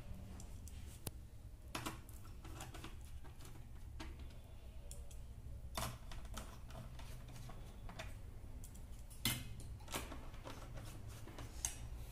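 Scattered clicks and light knocks of a screwdriver and hands working on a plasma TV's circuit boards and metal chassis, over a low steady hum.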